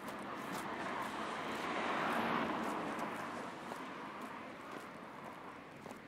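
A vehicle passing by: its noise swells to a peak about two seconds in, then fades away.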